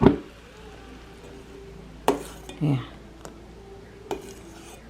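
A metal utensil clinking against a cooking pan, a few separate sharp clinks a second or two apart.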